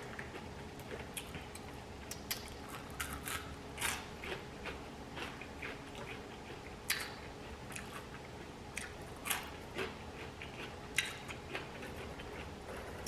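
Close-miked chewing and mouth noises of someone eating a burger and fries: irregular soft clicks and smacks, a few sharper ones scattered through.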